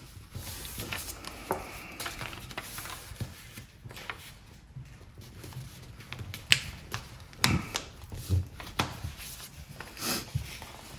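A sheet of paper being folded by hand into a paper airplane: rustling and crinkling, with irregular sharp snaps and clicks as the folds are pressed and creased, the loudest ones in the second half.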